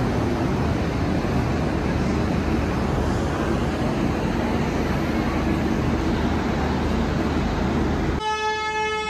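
Steady rolling rumble of a passenger train's coaches running past along a station platform. About eight seconds in, the sound cuts abruptly to a steady horn tone.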